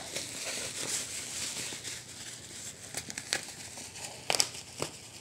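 Black bubble-wrap parcel packaging crinkling as it is cut and torn open. Several sharp crackles come from about three seconds in, the loudest a little after four seconds.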